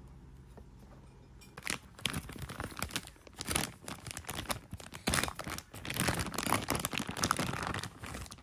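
Clear plastic bag of cables crinkling and rustling as it is handled, in irregular bursts that start about a second and a half in.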